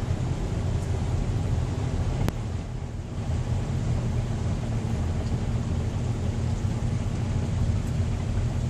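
Steady low rumble of a car driving, heard inside the cabin, with a single sharp click a little over two seconds in.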